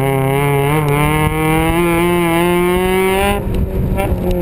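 Sports car engine pulling hard under acceleration on an autocross course, its revs climbing steadily for about three seconds, then a brief lift off the throttle near the end before it picks up again. Wind rushes over the open cockpit.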